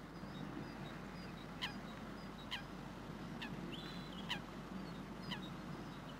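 A steady low background rumble, with a short falling chirp repeating about once a second.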